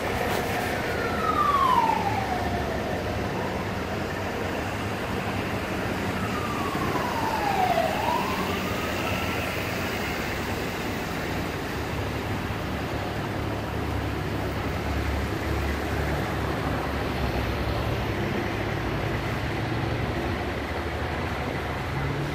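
Emergency vehicle siren in slow wails: one sweep falling in pitch over the first three seconds, then another falling and rising again around eight seconds in. Under it runs a steady low rumble of idling vehicles.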